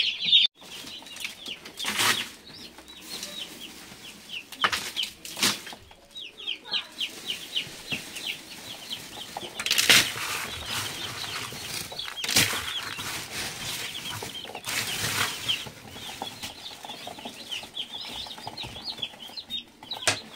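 A box of broiler chicks peeping constantly in a rapid, high chatter, with several brief rustling bursts.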